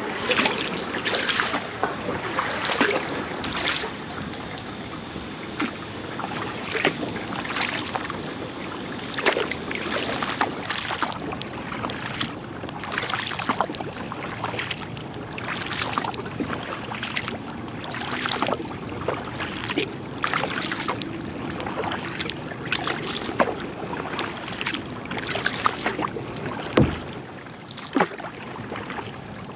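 Kayak paddle strokes, the blades splashing into the water about once a second over a steady wash of water along the hull. A single sharper thump comes near the end.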